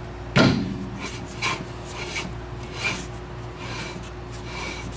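Rear brake drum on a 2000 Mitsubishi Mirage spun by hand, with a sharp knock near the start as it is first pushed. After that comes a repeated light rasping swish from the freshly adjusted brake shoes rubbing the drum: the slight drag wanted after adjustment.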